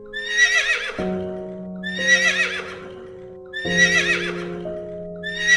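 A horse whinnying, the same shrill, quavering neigh repeated about every two seconds: three times, with a fourth starting near the end. It plays over background music of held chords.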